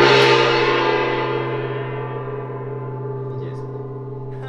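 A gong struck once and left to ring out: a steady low hum under a stack of higher metallic tones, the higher ones dying away first while the hum carries on.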